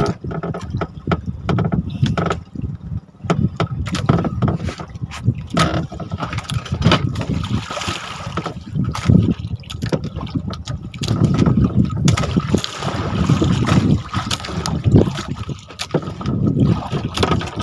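Water sloshing and splashing around a small boat, with irregular knocks against the hull.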